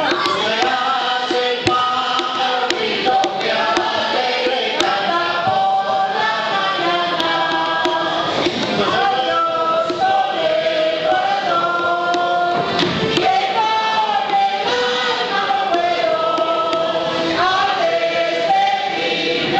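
A mixed group of men and women singing a song together in chorus, holding each note for about a second before moving to the next.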